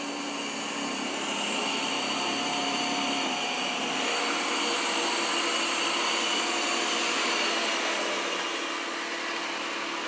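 Ecovacs Deebot N8+ robot vacuum running, a steady motor whir with faint high tones, as it vacuums across a carpet and onto the laminate floor.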